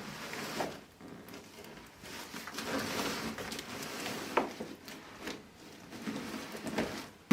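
A heavy cardboard parcel being shifted and handled, with scraping and rustling and a few light knocks. There is a sharper knock near the end.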